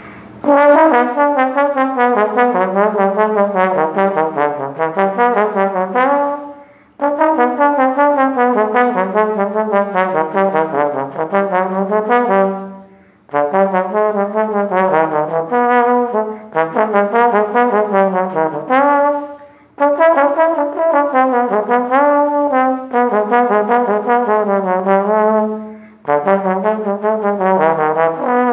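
A solo brass instrument playing a lively melody unaccompanied, in phrases of three to six seconds with short pauses for breath between them.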